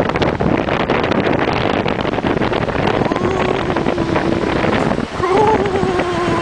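Wind buffeting the microphone, loud and steady with a heavy low rumble. From about three seconds in, a person's voice makes a drawn-out, wavering sound over the wind.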